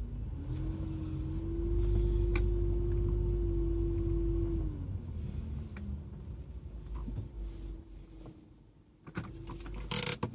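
2009 Subaru Outback's boxer engine with a new stainless steel cat-back exhaust, heard from inside the cabin: a steady drone for about four seconds, then falling in pitch and quieting as the car slows to a stop. It then settles to a quiet idle, purring, with a few clicks and a brief louder noise near the end.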